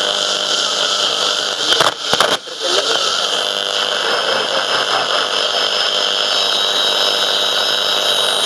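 AM/FM radio tuned between stations: steady buzzing static with a constant hum, broken by a short crackle and dropout about two seconds in.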